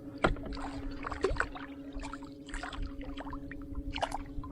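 Water splashes and knocks against a fishing kayak while a hooked fish is fought at the boat, over a steady low hum.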